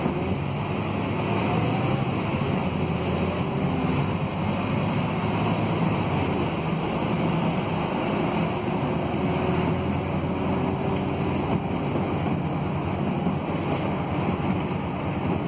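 Cabin noise of a Scania K280UB city bus on the move: its DC09 five-cylinder diesel running steadily with tyre and road noise, heard from inside the passenger cabin.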